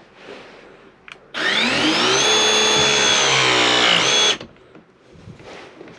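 Electric tool motor spinning up about a second and a half in, running with a steady whine for about three seconds, then stopping abruptly.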